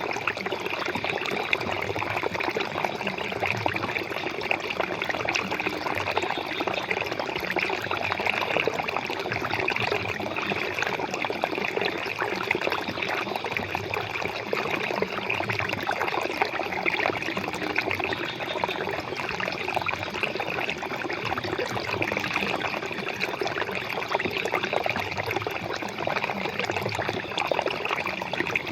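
Flowing water, trickling and splashing steadily without a break.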